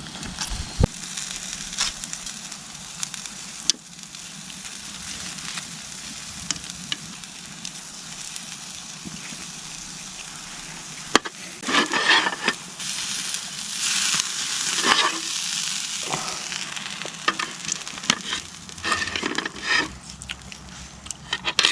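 Steak frying in a pan over a campfire: a steady sizzle with scattered sharp pops, growing louder in spells from about halfway through.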